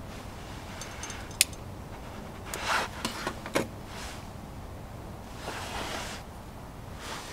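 A lighter clicks once, sharply, about a second and a half in as the brass Optimus SVEA 123R petrol stove is being lit for priming, followed by a few brief rubbing and handling noises on the stove, over a steady low background hiss.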